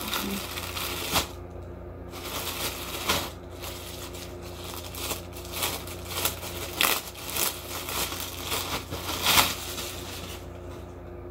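Clear plastic packaging bag crinkling and rustling in irregular spurts as a pair of pants is handled and unwrapped from it, with the loudest crackle near the end.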